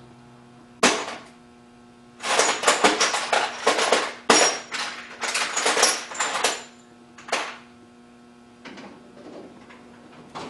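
Steel mill clamping-kit parts (T-nuts, step blocks and clamps) clanking and rattling as they are picked out of the set: one sharp clank about a second in, then several seconds of metallic clattering and clinking, a single knock after it, and a few lighter clinks near the end.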